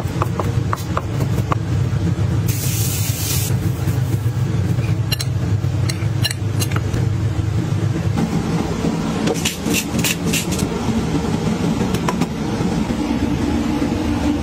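Chef's knife chopping fermented black beans and garlic on a wooden cutting board: a quick run of even taps, about three a second, in the first two seconds. A steady low rumble runs underneath throughout, and a few scattered clicks come later.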